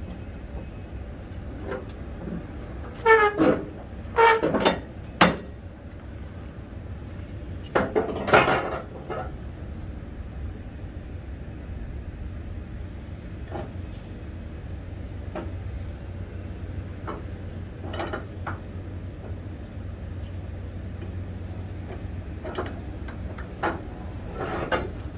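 Metal tie-down hardware clanking and rattling as a load is strapped down: a cluster of sharp, ringing clanks a few seconds in and another about eight seconds in, then lighter knocks, over a steady low rumble.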